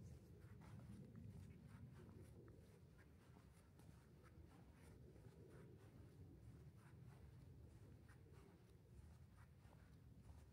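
Near silence: a faint low rumble with scattered, irregular soft ticks and scratches.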